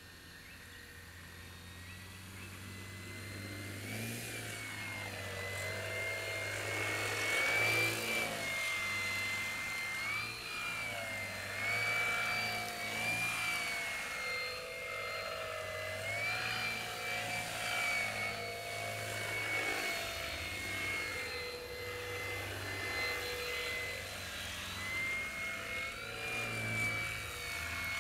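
Small RC foam airplane's BM2410-12 brushless outrunner motor and 12x6 propeller whining, the pitch stepping up and down with repeated throttle changes. It grows louder over the first several seconds as the plane comes closer.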